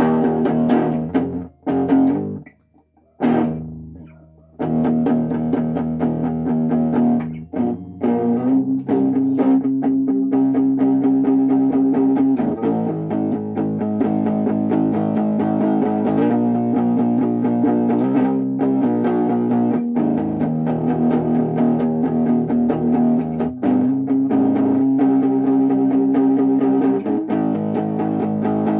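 Electric Les Paul-style guitar played through a small 15-watt practice amp with the gain turned back up, strumming sustained, overdriven chords. There are a few broken-off strums at first, then steady playing with a chord change every couple of seconds.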